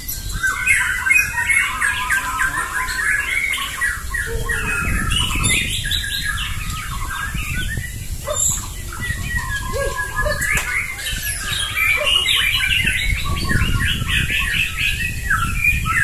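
Several white-rumped shamas (murai batu) singing at once: a dense, overlapping chorus of rapid, fast-changing song phrases that runs on without a break.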